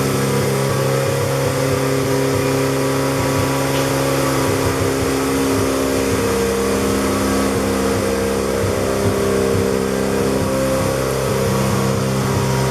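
Mazda RX-7 FD3S's twin-turbo 13B rotary engine running at a steady fast idle while it warms up after a cold start.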